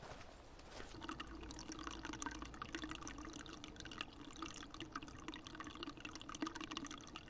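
Water trickling and splashing in a steady, fairly quiet flow, like a small stream; it comes in about a second in.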